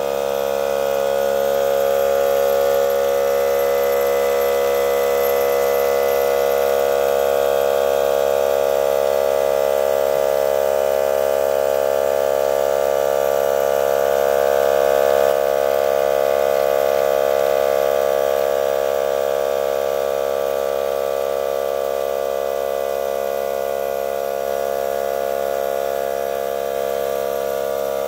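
Klughen portable air compressor running with a steady, even motor hum.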